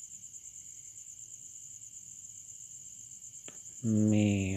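Steady high-pitched insect chirring in the background. Near the end a man's voice comes in loudly, held on one level pitch, with a faint click just before it.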